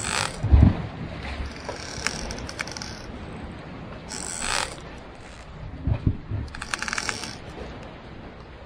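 Ship sound effects: wooden timbers creaking and clicking, with a hissing sea wash about every two to three seconds and two low thuds, the louder one near the start.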